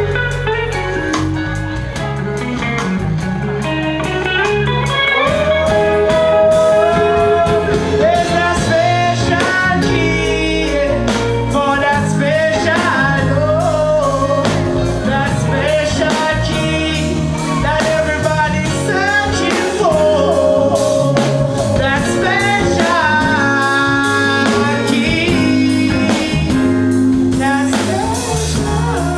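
Live reggae band playing an instrumental passage: a gliding lead melody over a bass line and drums.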